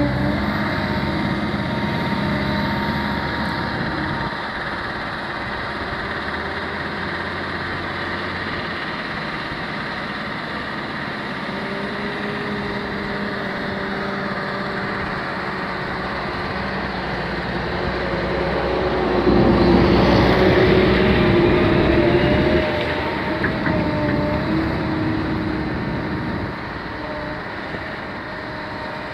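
CAT M315D wheeled excavator's diesel engine running steadily as it digs sand. It swells louder for about three seconds about two-thirds of the way through, as the machine works harder.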